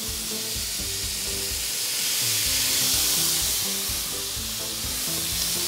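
Marinated chicken and vegetable kabobs sizzling on hot stovetop grill pans, a steady frying hiss.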